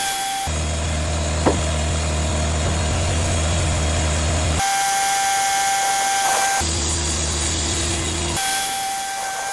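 Cook's AC36 sawmill running: a steady low mechanical drone that switches abruptly, twice, to a steady high-pitched whine with the low drone gone. There is one sharp click about a second and a half in.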